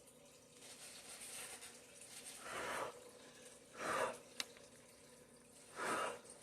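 Three short puffs of breath blown onto wet pour paint, about a second and a half apart, with a small sharp click just after the second puff.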